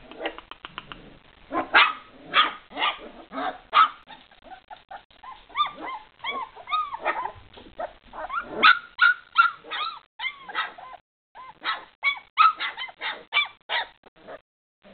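Springer spaniel puppy yapping in a near-continuous run of short, high-pitched yaps, with arching whiny yelps around the middle.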